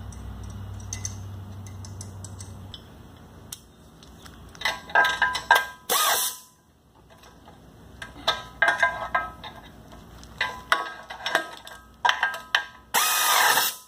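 Metal parts and tools clinking and ringing while the sulky's wheel and hitch hardware are put together, with two hisses of compressed air from an air hose, the second longer and near the end. A low hum fades out a few seconds in.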